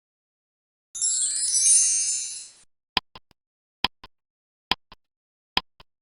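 Edited intro sound effect: a bright shimmering sweep lasting under two seconds, followed by four sharp double clicks at an even pace.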